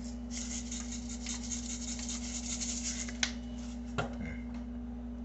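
Salt shaker, with rice grains inside, shaken over a parchment-lined pan: quick rattling strokes for about three seconds, then a couple of single clicks.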